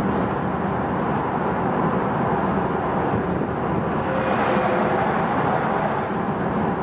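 Steady road and tyre noise of a car cruising on a highway, heard from inside the cabin, with a brief swell of hiss about four seconds in as a coach passes alongside.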